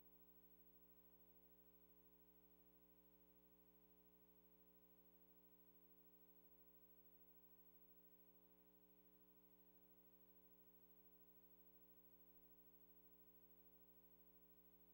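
Near silence: only a faint steady electrical hum, unchanging throughout.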